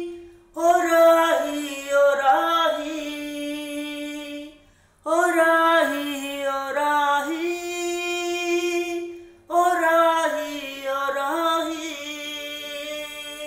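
A solo voice singing a slow Hindi song in three long phrases of held, gliding notes, with short breaks between them.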